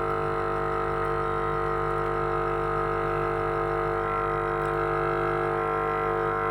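A steady drone of several held tones that does not change, music-like.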